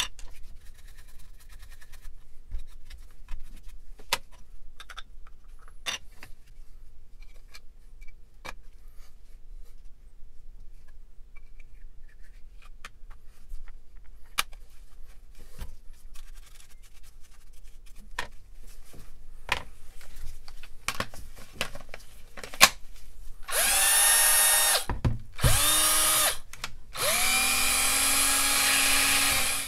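Hitachi cordless drill test-run in three bursts near the end, each one spinning up with a rising whine; the motor runs again after its leads were resoldered, which the owner suspects had a loose contact. Before that, scattered light clicks and knocks of handling.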